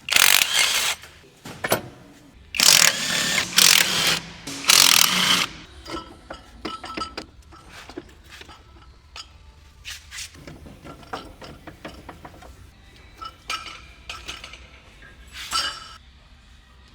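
Workshop tool work on car parts: three loud bursts from a power or air tool in the first few seconds, then scattered metal clicks and knocks, with a shorter burst near the end.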